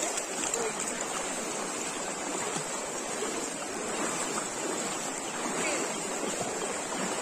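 Floodwater flowing across a road in a steady rushing wash, with faint voices in the distance.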